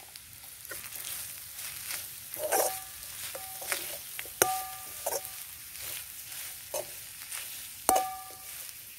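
A steel spoon stirring and scraping grated coconut with spices in a metal kadai, clinking against the pan several times so that it rings briefly, the loudest knocks about four and a half and eight seconds in. Under it, the mixture sizzles as it fries.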